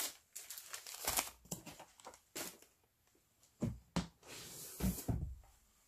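Gift-wrapped paper parcels rustling and crinkling as a hand rummages through a cardboard advent-calendar box, with a few soft bumps against the box about two-thirds of the way through.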